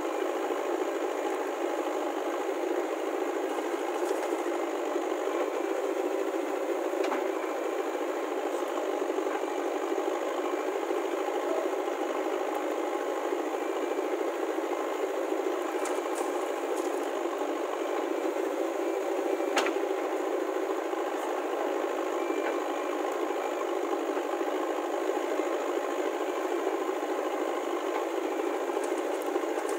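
Diesel engines of a JCB 3DX backhoe loader at work and of a tractor idling, running steadily, with the rattle of the machinery and a few sharp metallic knocks from the working arm and bucket. The clearest knock comes about two-thirds of the way through.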